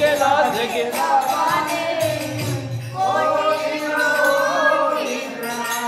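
Hindi devotional bhajan music: a melody of bending and held notes over a steady jingling percussion beat.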